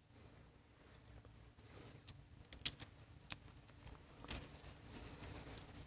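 Faint clicks and light metallic ticking of small carburetor parts handled by hand: the float lever being fitted back onto the float of a Linkert carburetor. A handful of separate clicks, a little sharper in the second half.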